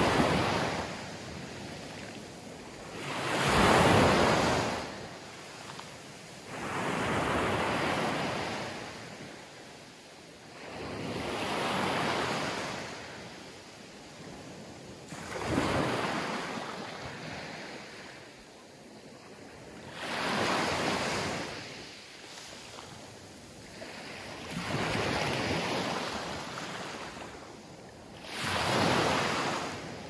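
Small Mediterranean Sea waves breaking and washing up a coarse-sand beach strewn with pebbles. About eight surges come one every four seconds or so, each swelling and then fading.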